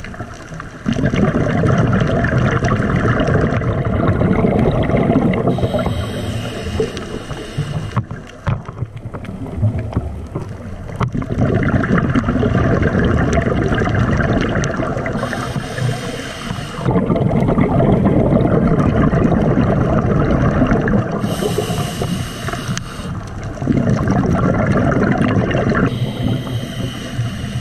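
Scuba diver breathing through a regulator, heard underwater: long bubbling rumbles of exhaled air alternating with shorter, thinner hissing inhalations, repeating in a steady cycle of several breaths.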